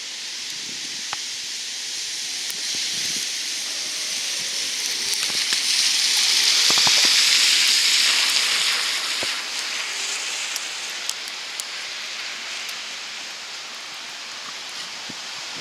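Tyres hissing on a wet, slushy street as a vehicle passes, swelling to a peak about seven seconds in and then fading, over a steady wet hiss with a few faint ticks.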